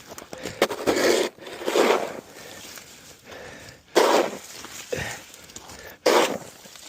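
A shovel scraping and scooping snow in irregular strokes, a handful of them, the loudest about four and six seconds in.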